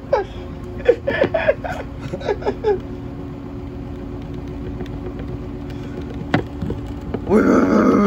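Front-loading washing machine on its high-speed spin cycle, the drum and motor giving a steady hum. Near the end it gets suddenly louder, rumbling and rattling as the machine starts to shake.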